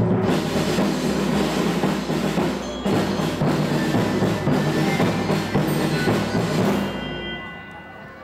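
Children's percussion ensemble playing drums with marimbas and other mallet percussion. The music breaks off about seven seconds in, and its last notes ring away quietly.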